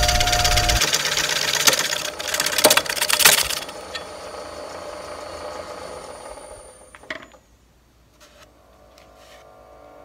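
A bowl gouge cutting the wall of a spinning birch bowl on a wood lathe: a loud, steady scraping hiss with a few sharp clicks, ending about three and a half seconds in. The lathe then runs on more quietly and winds down to near silence about seven and a half seconds in.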